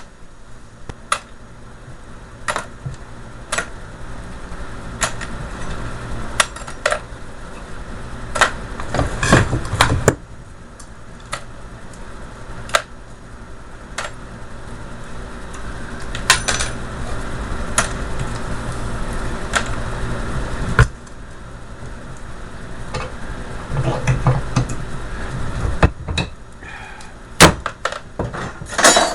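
Sharp metal clanks and knocks at irregular intervals, with stretches of scraping, as copper bars are pried and knocked off a starter motor armature. A steady low hum runs underneath.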